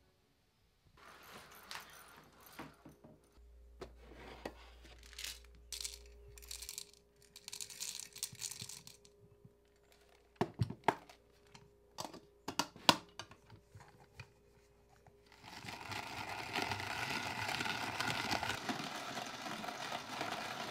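Rustling and crinkling handling sounds, then a few sharp cracks, then a hand-cranked coffee grinder grinding beans steadily for the last five seconds or so.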